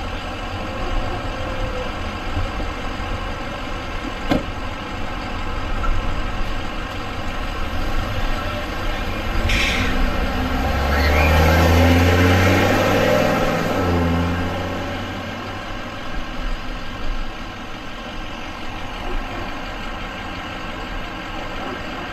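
Box ambulance driving slowly past close by, its engine rising to a peak about halfway through and then fading away, with no siren.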